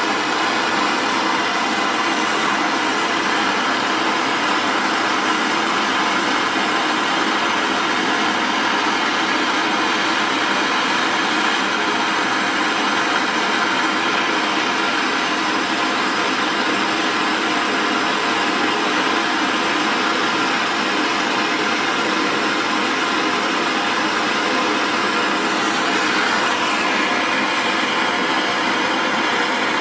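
Vortex brazing torch burning MAP-X gas, its flame running with a steady hiss as it is held on a rusted steel part.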